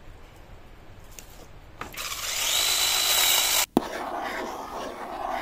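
Kebtek battery-powered handheld mini chainsaw cutting a thin firewood branch: a loud buzz with a high motor whine that starts about two seconds in and stops abruptly about a second and a half later. A click and a softer, different sound follow.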